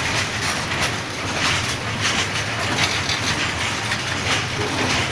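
Loaded BOXN open freight wagons rolling past close by: a continuous rumble of wheels on rail, with the wheels clattering over rail joints in a recurring clickety-clack about once or twice a second.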